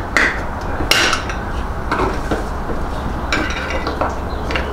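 Small hand tools clicking and scraping against the plastic trim of a 2009 Chevrolet Traverse's interior door panel as trim covers are pried off: about six short, irregular clicks over a steady low hum.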